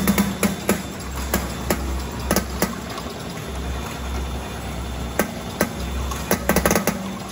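VMek Abacus+ gummy counting machine running: a low hum from its vibrating feed trays comes and goes in pulses of about a second, with scattered sharp clicks that cluster near the start and near the end.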